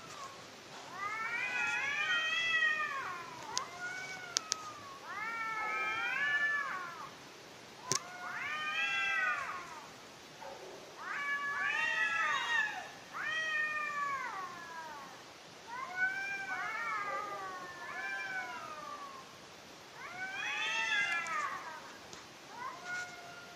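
Cats caterwauling: long drawn-out yowls that rise and fall in pitch, one after another every couple of seconds and sometimes overlapping, the mating calls of cats at night. A few sharp clicks cut in between the calls.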